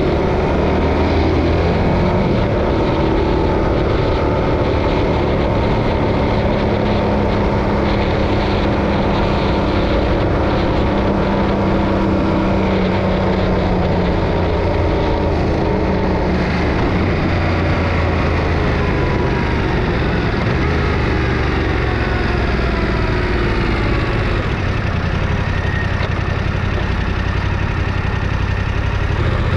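Yamaha Ténéré 700's parallel-twin engine running under way. About halfway through its note falls as the bike slows, settling to a lower, steady note near the end.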